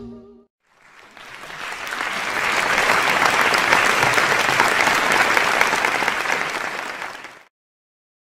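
Audience clapping. It swells in about a second in, holds, and fades away near the end.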